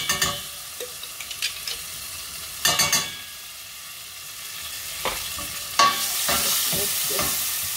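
Homemade green chili paste sizzling in hot coconut oil in a stainless steel pot, as a steady hiss that grows toward the end. A metal spoon knocks and scrapes against the pot several times as the paste is tapped off it.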